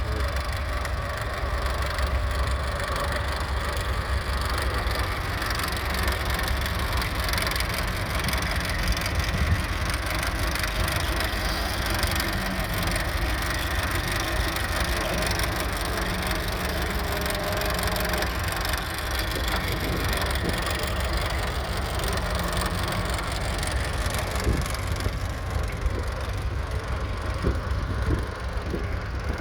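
The four-cylinder diesel engine of a 1957 MAN Acker Diesel G40 tractor runs steadily while pulling a two-furrow mounted plough. A continuous crackling noise lies over the deep engine sound.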